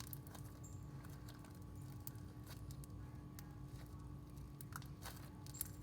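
Foam-ball slime and modeling clay being kneaded by hand: faint, scattered crackles and squishes over a steady low hum.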